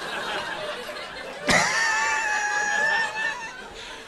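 Audience laughing. About a second and a half in, one high-pitched shriek rises out of the laughter and is held for about a second and a half before the laughter goes on.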